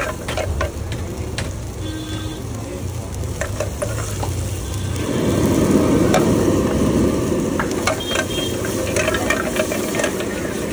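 Onions, tomatoes and green chillies sizzling in hot oil in a black iron wok on a gas burner, with a steel ladle stirring and clinking against the pan. The frying noise grows louder about halfway in.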